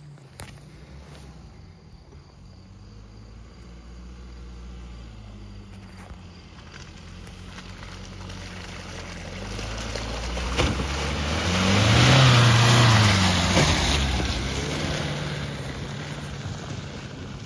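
Dacia Duster 1.5 dCi 4x4 engine pulling up a muddy grass track. It grows louder as the car approaches, passes close by about twelve seconds in with its pitch rising then dropping, and fades as it drives away, with tyre noise from the wet track at the loudest point.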